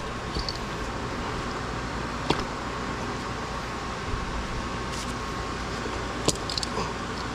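Steady fan-like hum with a few short sharp clicks, the clearest about two and six seconds in.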